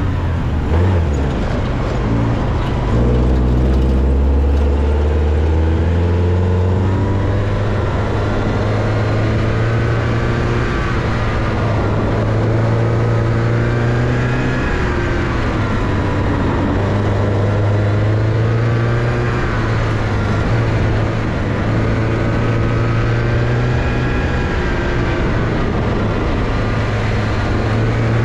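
Porsche 944's inline-four engine working hard through a rallycross run on loose dirt, revs rising and falling again and again with shifts and corners, over the noise of tyres on dirt. The owner feels the engine is still not running correctly under this kind of hard use.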